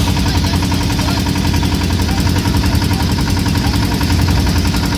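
Boat engine running steadily at a constant speed, a loud, even low rumble with a steady hum.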